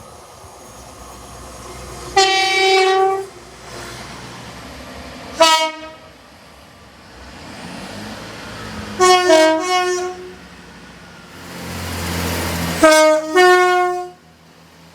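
Train horn sounding: a blast of about a second, a short toot, then two short groups of two-tone chord blasts. Under the last group a train's rumble builds as it comes closer.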